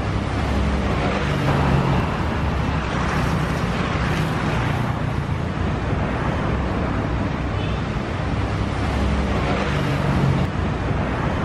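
Steady street traffic noise, with the engine hum of passing vehicles swelling and fading several times.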